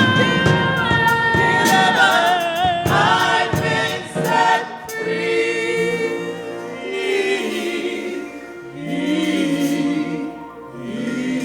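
Gospel choir singing with vibrato over instrumental accompaniment, the song winding down into softer held chords.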